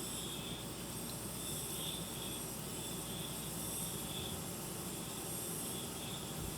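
Insects chirping in faint, repeating trills over a steady hiss.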